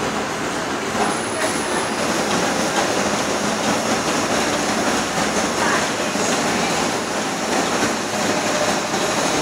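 Industrial gnocchi machine running, its motor and cutting mechanism making a steady, even mechanical noise as it turns out gnocchi.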